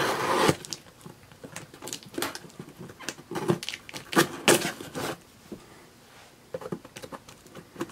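Packing tape on a cardboard box being slit and torn open by hand, with irregular scraping, crackling and rustling strokes.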